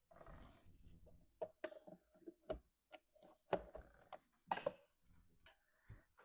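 A scatter of sharp plastic clicks and knocks as an LG LT1000P2 refrigerator water filter cartridge is twisted into its housing, the loudest about three and a half seconds in.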